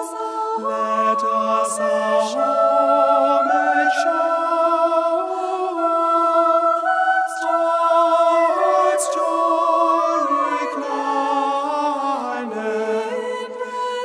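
Background music: unaccompanied voices singing together in harmony, slow long held notes that change pitch every second or two.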